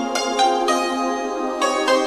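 Background music: a plucked string instrument playing a steady run of notes.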